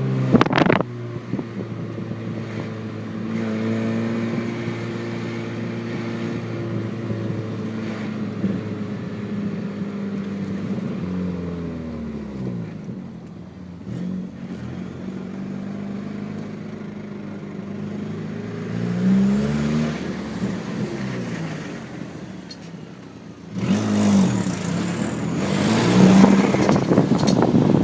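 A 2000 Audi A4 B5 being driven, its engine note rising and falling with speed and getting louder near the end, with a metallic clicking from a wheel: a loose valve-stem nut rattling around inside the tyre.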